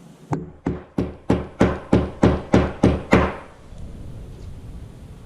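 A fly-tying hair stacker holding a clump of deer hair being tapped down hard on the bench about ten times, roughly three taps a second, to even the hair tips. The taps stop a little past three seconds in.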